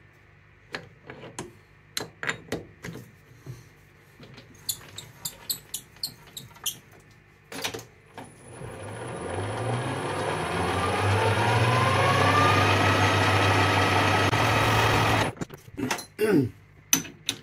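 Metal lathe: light clicks and knocks of a tool being changed and set, then the lathe motor spins up with a rising whine about eight seconds in and runs steadily while the part's edge is chamfered, stopping abruptly near the end, followed by a few more clicks.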